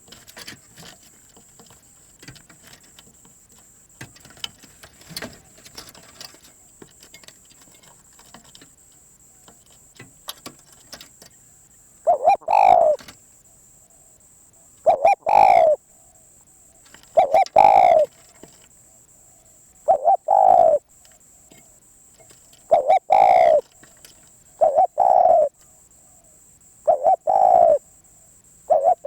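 Spotted dove cooing: about twelve seconds in it begins loud short coos, one roughly every two and a half seconds, eight in all. Before that there are only faint scattered clicks, and a faint steady high-pitched hum runs underneath.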